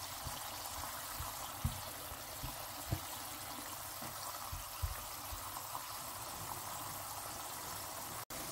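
Pedro Ximénez wine bubbling and sizzling with onions in a pan over high heat as it reduces, a steady hiss broken by a few soft low knocks.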